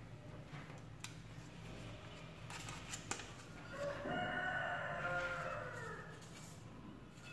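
Soft crinkles and clicks of a dollar bill being folded and creased by hand. About four seconds in, a single drawn-out animal call, about two seconds long, falling in pitch at its end, sounds over it.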